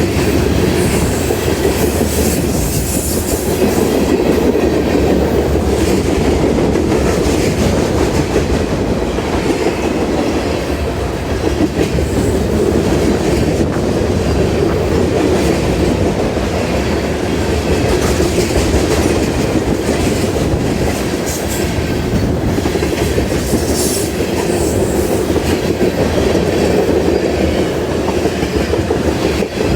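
CSX freight train cars rolling past at speed: steady loud wheel-on-rail noise with clacking of the wheels over the track.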